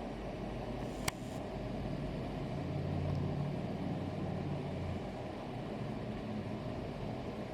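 Low engine rumble from a motor vehicle that swells for a couple of seconds over a steady rushing noise. A single sharp click sounds about a second in.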